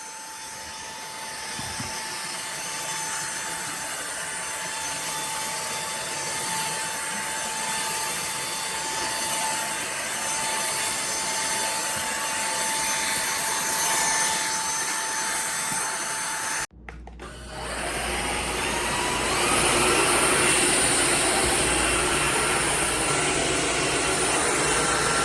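Cordless stick vacuum motor running steadily with a high whine. About two-thirds of the way through it breaks off briefly, then runs again with a deeper hum and a whine that rises in pitch as the motor speeds up.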